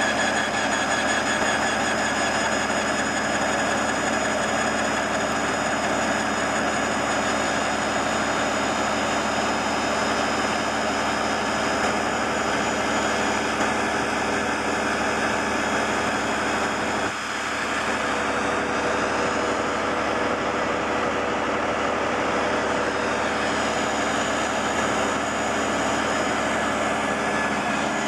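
Portable line boring machine running steadily: its electric drive unit turns the boring bar through a pin bore on an excavator's frame, a steady mechanical whine with several held tones. The level dips briefly about two-thirds of the way through.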